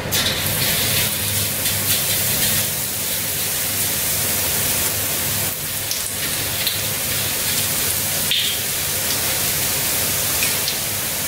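Gram-flour batter frying in hot oil in a steel kadhai, being made into boondi: a loud, dense, steady sizzle that starts suddenly as the batter goes into the oil.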